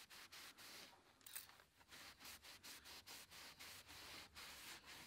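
A scrubbing pad rubbed quickly back and forth over the painted metal radiator support panel of an engine bay wet with all-purpose cleaner: a faint, even run of scrubbing strokes, with one brief, louder hiss about a second and a half in.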